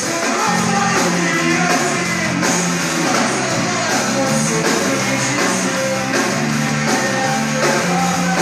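A live rock band playing: a singer over electric guitars and a drum kit, a steady loud beat with a moving low line.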